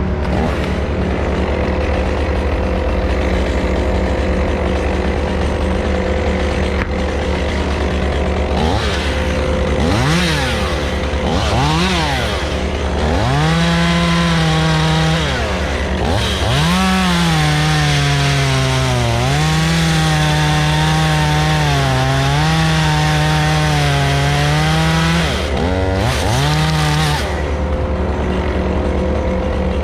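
Stihl chainsaw blipped up and down a few times, then held at full revs cutting wood for about fourteen seconds, its pitch sagging and recovering as the chain bites, before dropping back to idle near the end. A steady low engine drone runs underneath.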